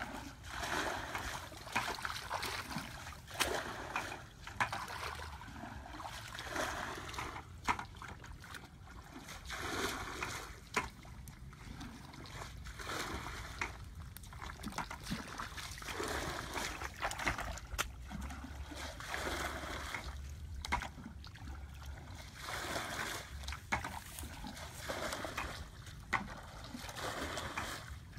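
Hands splashing and sloshing in shallow muddy ditch water in irregular bursts, with sharp splatters and trickling, as fish are groped for by hand in the mud.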